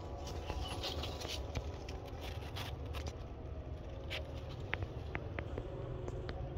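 Fig leaves rustling and scraping against the camera as it is pushed through the foliage, a quick run of short scratchy rustles that thins out in the second half, over a low rumble of handling.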